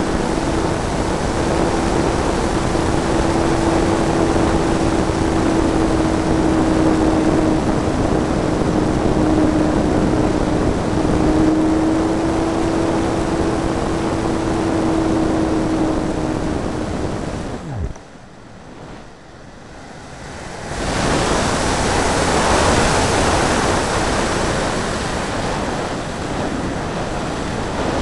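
Wind rushing over an RC hotliner in flight, with the electric motor's steady whine under it. About 18 seconds in the motor whine cuts out and the sound drops away for a few seconds, then the wind rush builds again as the plane glides without power.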